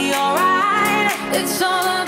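Background pop music with a singing voice carrying the melody.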